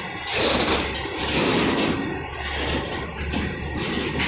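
Freight train's BOXNHL open-top wagons rolling past at close range, their wheels running over the rails with a continuous uneven rumble. A thin, high, steady wheel squeal joins about halfway through.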